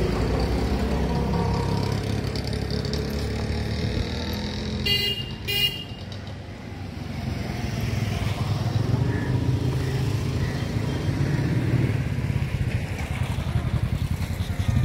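A motor vehicle engine running steadily, with two short horn toots about five seconds in.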